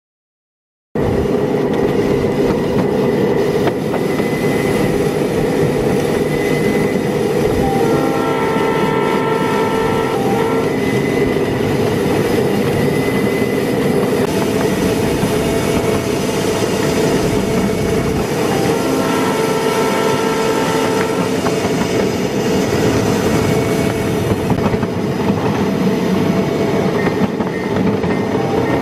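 Ride-on scale railroad train pushing a wedge snow plow through snow and ice, a loud steady rush of noise that the ice on the rail and on the snow crust makes very noisy; it starts about a second in. A distant Union Pacific train's chime horn sounds twice in the background, about a third and two thirds of the way through.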